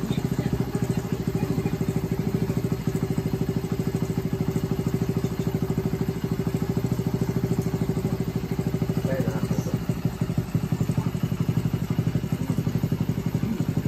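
Custom monkey bike's small engine idling steadily, with an even, rapid pulse.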